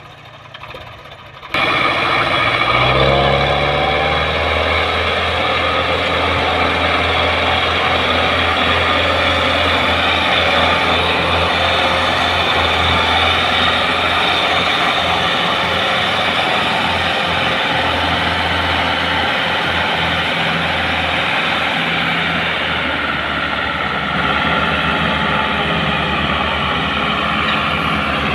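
Tractor diesel engine pulling a heavily loaded trailer through soft ground. It comes in suddenly, revs up over a couple of seconds, then runs hard at a steady deep note.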